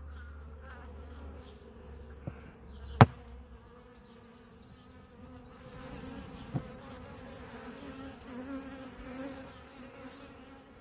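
Honey bees buzzing at close range in a steady, wavering hum, getting somewhat louder in the second half. A sharp click sounds about three seconds in, with a couple of fainter ticks around it.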